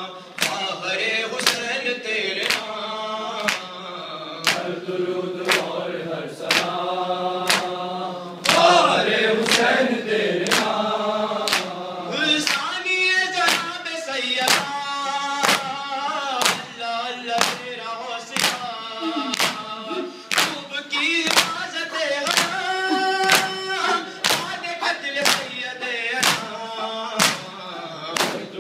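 Men chanting an Urdu noha in chorus, a lamentation in praise of Husain's mother, with a steady rhythm of palms striking chests (matam) a little more than once a second.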